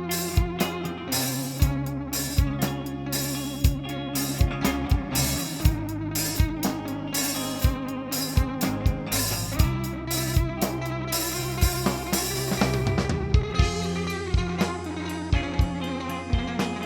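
Instrumental band music: guitar over bass and a drum kit keeping a steady beat. The cymbals drop out about three-quarters of the way through while guitar and drums carry on.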